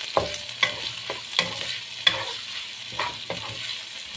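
Tofu cubes and pounded shallot, garlic, chilli and anchovy frying in hot oil in a wok, a steady sizzle, with a spatula scraping and tapping the pan about twice a second as they are turned. The tofu is being fried until lightly crisp.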